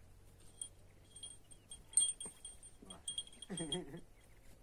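Light metallic tinkling in quick little runs of clinks, with the loudest clink about two seconds in, from the Kangal dogs' collar and leash hardware as they move and sniff each other. A short, low vocal sound comes about three and a half seconds in.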